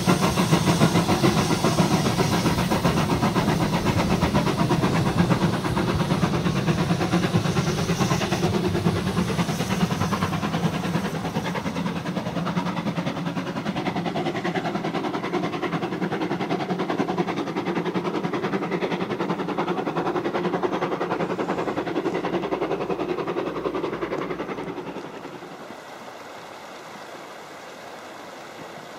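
Saxon class 99.77 (VII K) narrow-gauge steam tank locomotive pulling away with its train, its rapid exhaust chuffs and the rolling coaches slowly fading as it draws away. About 25 s in this gives way to the steady trickle of a small stream.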